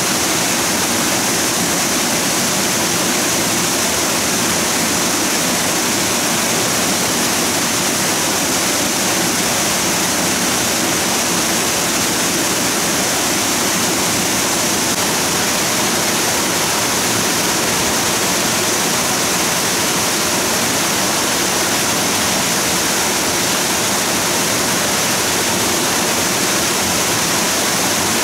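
Steady, loud rush of flowing water, a waterfall or fast stream, unchanging throughout.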